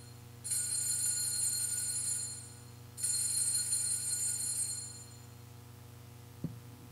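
Altar bells ringing for the elevation of the chalice at the consecration. The tail of one shaken ring fades at the start, then come two more rings of about two seconds each, about two and a half seconds apart.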